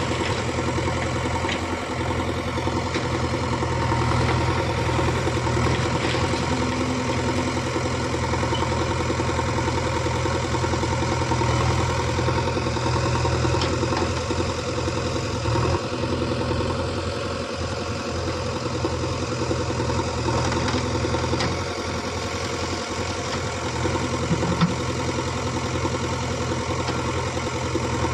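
JCB 3DX backhoe loader's diesel engine running steadily with a low hum, its loudness dipping and rising a little as the load changes, with a brief sharp knock about three-quarters of the way through.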